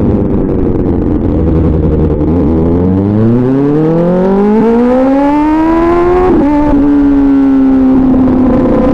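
Kawasaki ZX-6R's inline-four engine with an SC-Project aftermarket exhaust, accelerating: the engine note climbs steadily for a few seconds, drops suddenly at a gear change, then settles into a steady note.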